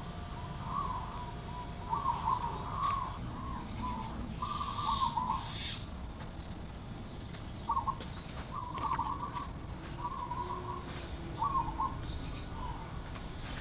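A bird calling in short warbling phrases, about a dozen with gaps between them, over a steady low outdoor rumble.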